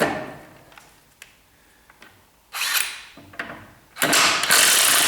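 Impact wrench loosening nuts on a car's front suspension: a knock at the start, a short burst about two and a half seconds in, then a longer steady run from about four seconds in.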